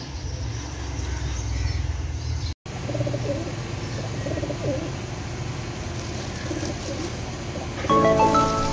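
Domestic pigeons cooing. Background music comes in near the end.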